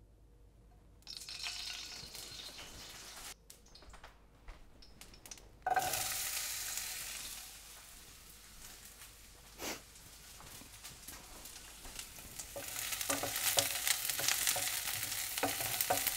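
Chopped onion frying in hot oil in a stainless steel sauté pan. A shorter hiss comes first, then a sudden loud sizzle about six seconds in as the pan fills. Near the end the sizzle grows busier, with a wooden spoon scraping and stirring the onion.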